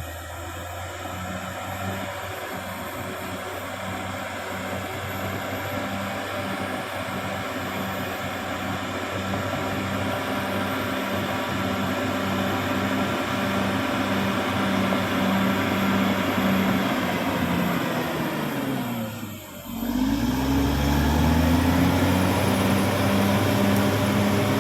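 Caterpillar D6R XL bulldozer's diesel engine running steadily with a regular beat. About three-quarters of the way through the revs drop away, dip briefly, then climb back up and hold a little louder.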